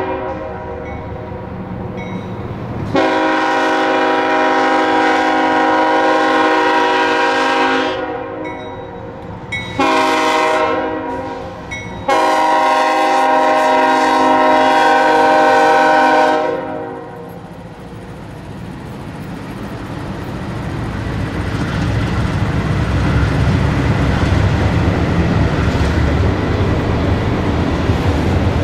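GE diesel locomotive air horn sounding a crossing warning: a long blast, a short blast and a final long blast, a chord of several notes. After the horn stops, the low rumble of the locomotives and the auto rack cars rolling past the crossing builds up and carries on to the end.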